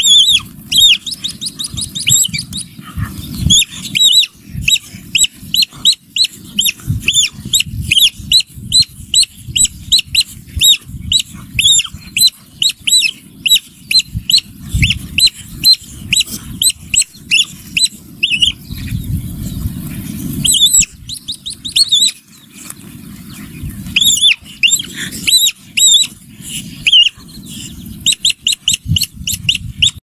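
Rapid high-pitched squeaks, two or three a second, from a stoat-like predator and its prey locked in a fight on the ground. Under them runs a low, uneven rumbling noise.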